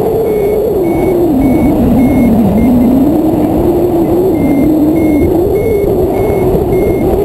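Airflow rushing over the microphone of a tandem hang glider in flight, with a whistling tone that rises and falls. A variometer beeps in short high pips about twice a second, its climb signal showing the glider is in rising air.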